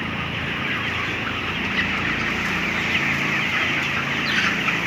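A large flock of 27-day-old broiler chickens clucking and chirping together in a dense, steady chatter, over a low steady hum.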